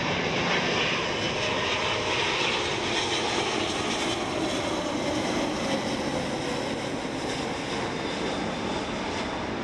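Boeing 777 twin jet engines on final approach, heard as the airliner passes low overhead: a steady rushing jet noise with a high whine, loudest in the first few seconds and then easing slightly.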